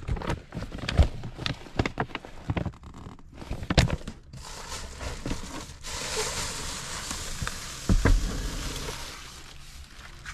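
Clicks and knocks of things being handled in a car, then a plastic bag rustling for a few seconds, with a thump near the end.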